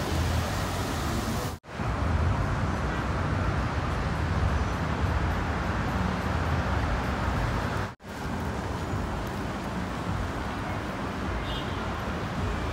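Street ambience: a steady rumble and hiss of road traffic, cutting out briefly twice where separate clips are spliced together.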